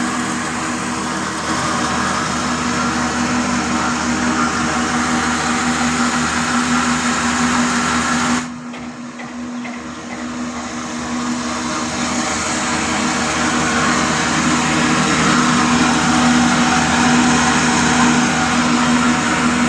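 Stationary desi diesel oil engine running steadily with a constant whirring hum; the sound briefly drops and goes duller about eight seconds in, then returns.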